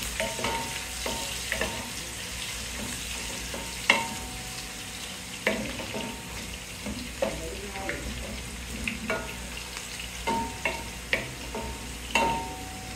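Onions frying in hot coconut oil in a pot, sizzling steadily while being stirred, the spoon scraping and knocking against the pot now and then.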